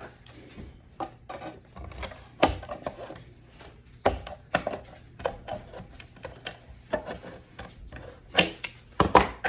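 Irregular light knocks and clicks as TIE pilot helmet kit pieces are handled and trimmed on a table, with a few louder knocks near the end.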